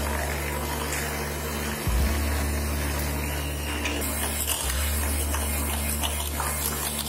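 Electric hand mixer running steadily, its twin beaters whisking whipping cream in a stainless-steel bowl.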